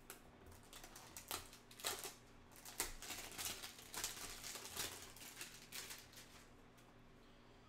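Cardboard hanger box of trading cards being handled and torn open by hand: an irregular run of scratchy rustles and clicks that dies away near the end.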